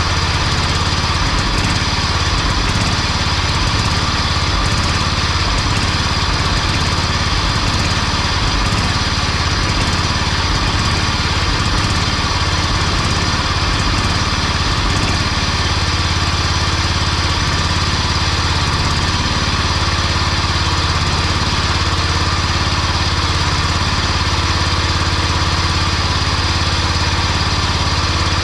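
John Deere 175 riding mower's Kawasaki engine running steadily while its carburetor mixture screw is turned out. The screw had been only a quarter turn out, and opening it to about 1¼ turns makes the engine run cleaner.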